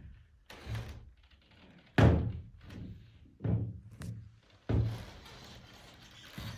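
Heavy, hollow thuds of a person shifting his weight and moving across a greenhouse roof, four knocks with the loudest about two seconds in.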